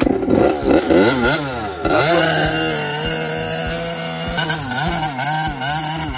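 Dirt bike engine revving up and down in quick swells, then running steadier from about two seconds in, with small dips in pitch.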